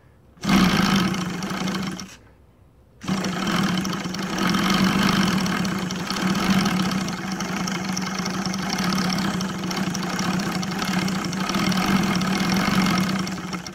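OS Sirius 7 FR7-420 seven-cylinder four-stroke radial engine, converted to CDI ignition and turning a 24x10 wooden propeller, being started. It runs briefly about half a second in and dies after a second and a half, then starts again about three seconds in and runs steadily.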